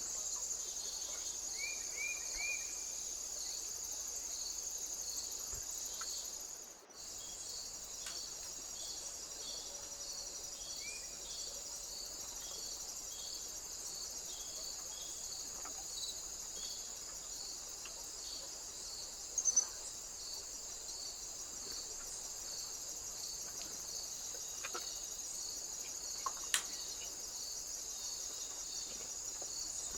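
Crickets chirping steadily: a high continuous trill with a slower, pulsing chirp about once a second. A few short bird chirps come near the start, the sound drops out briefly about seven seconds in, and there are two sharp ticks later on.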